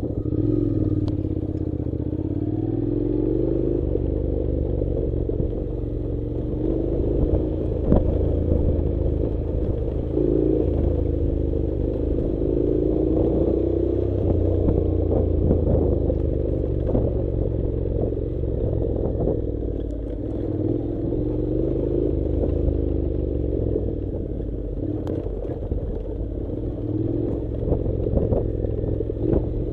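Honda NC700 parallel-twin motorcycle engine running at low speed on a rough dirt track, its pitch rising and falling as the throttle is worked. Occasional sharp knocks are heard over it.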